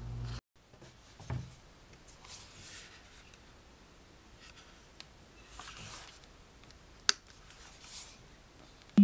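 Faint handling noises of a plastic-and-rubber Bluetooth speaker being picked up and turned in the hands: a soft knock about a second in, light rubbing, and a sharp click about seven seconds in.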